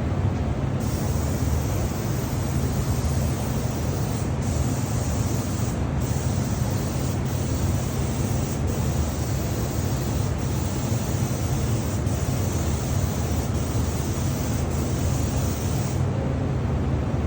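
Spray gun hissing as it sprays a coat of wood finish, with several brief breaks where the trigger is let off, over a steady low hum from the spray equipment. The spraying starts about a second in and stops near the end.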